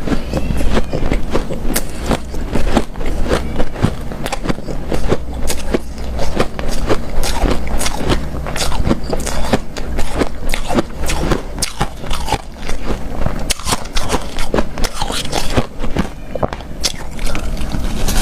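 Close-miked biting and chewing of hard, powdery refrozen ice, a dense, continuous run of crisp crunches and crackles.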